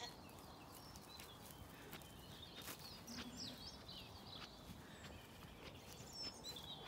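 Quiet background with faint bird chirps scattered through, a few soft ticks, and one short low call about three seconds in.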